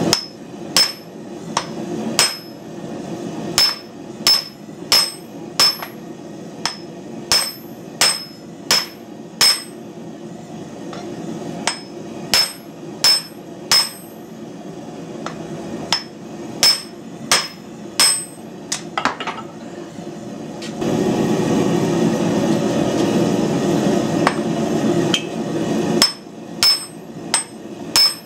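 Hand hammer blows on the end of a red-hot bar of medium-high carbon steel, upsetting it on a steel block: sharp, ringing strikes in runs of three to seven, about one and a half a second, with pauses between. A steady low rushing sound runs beneath and grows louder during a long pause in the hammering.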